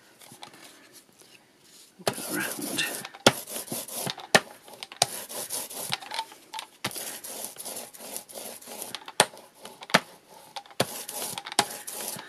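A hand brayer (paint roller) rolling gesso over textured craft card in repeated strokes, a grainy, hissing rolling sound that starts about two seconds in, with sharp clicks and taps between the strokes.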